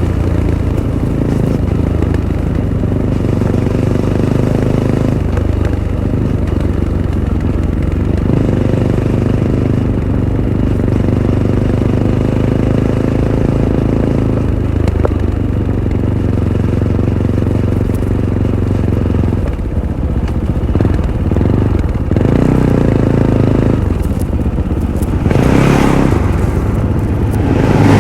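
Fantic Caballero 500's single-cylinder engine running through its stock Arrow exhaust on a trail ride, its note rising and falling with the throttle. Near the end there are louder rushing bursts.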